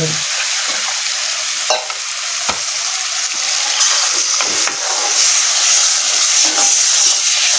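Steady sizzling from a yogurt-and-gram-flour kadhi mixture in a hot metal kadhai while it is stirred with a metal ladle, with a few sharp clicks of the ladle against the pan. Water is poured in partway through.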